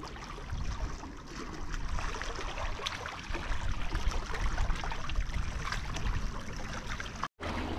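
Sea water washing and lapping against a breakwater, an even wash of noise over a steady low rumble, with scattered small splashes and clicks. The sound drops out for an instant near the end.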